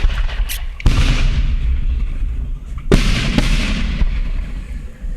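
Aerial fireworks bursting: two big booms about two seconds apart, each trailing off in a long rolling rumble with crackle, with a few smaller pops before the first.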